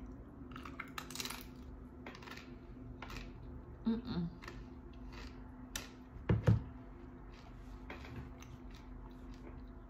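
Crunching and chewing of a guacamole-dipped tortilla chip close to the microphone: irregular crisp crunches about once a second. A louder low thump comes about six and a half seconds in.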